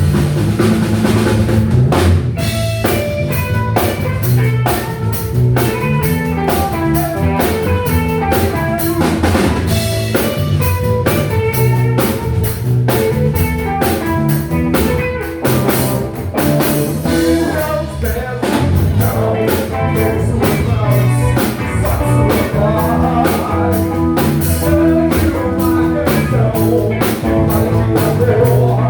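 Live rock band playing an instrumental passage: drum kit keeping a steady, busy beat under electric bass and guitar, with no singing.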